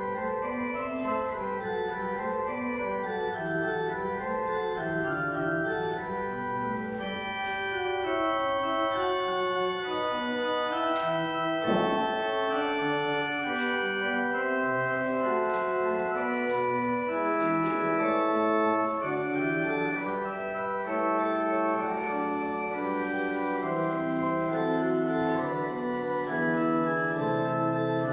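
Church organ playing a prelude, sustained chords under a moving melody line, with one brief knock near the middle.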